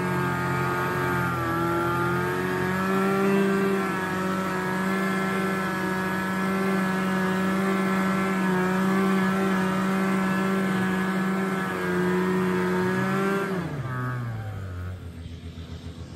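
Vintage 1976 Yamaha GS340 snowmobile's two-stroke engine running at a steady high speed under way. Near the end the revs drop off quickly and it settles into a slow, uneven putter.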